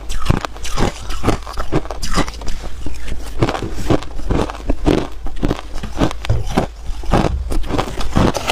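Hard ice being bitten and chewed close to the microphone: a quick, uneven run of sharp crunches, about three a second.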